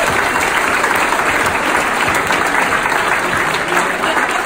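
Banquet audience applauding: many people clapping together, steady throughout.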